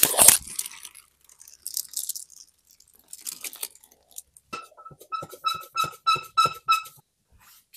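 Cardboard and packing rustling briefly at the start. Then a hand-pushed scissor-lift cart carrying a boxed-out 100-pound battery squeaks rhythmically, about four short high squeaks a second for two seconds, before stopping.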